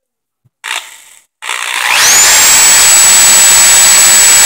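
Electric drill spinning up about a second and a half in, after a brief rustle of handling: its motor whine rises quickly and then runs steady and loud at full speed. It is spinning a carburetor jet held in its chuck so that a guitar string can be run through the jet to clean it.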